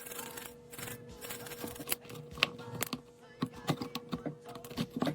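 Irregular small clicks and taps from handling a car CD head unit and bench tools, over quiet background music.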